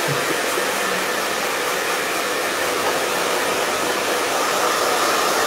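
Handheld hair dryer blowing steadily while drying hair, an even rushing of air with a faint steady whine.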